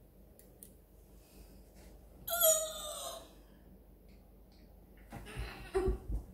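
A child's short vocal cry, falling in pitch, about two seconds in: a reaction to the food just tasted. A few low thumps near the end.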